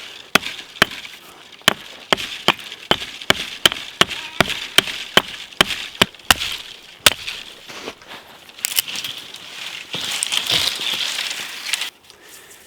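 Wood being chopped, with sharp strikes about two a second that stop about seven seconds in. A rough scraping hiss follows for a few seconds and cuts off suddenly near the end.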